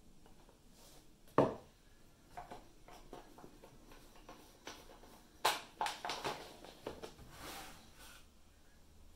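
Handling noises of a plastic liquid-fertilizer pouch, its screw cap and a plastic gallon jug on a table: a single thump about a second and a half in, then a quick run of knocks and a plastic rustle in the second half.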